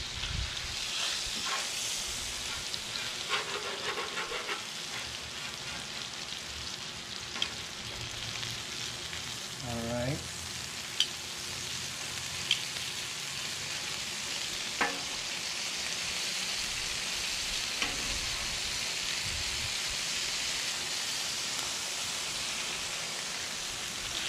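Bacon-wrapped meatloaf sizzling in grease on a Blackstone flat-top griddle, a steady frying hiss. A few sharp clicks come from the metal spatula and tongs against the griddle top as the loaf is turned.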